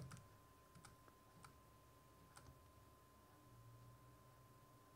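Near silence: room tone with a few faint clicks in the first half and a faint steady high tone underneath.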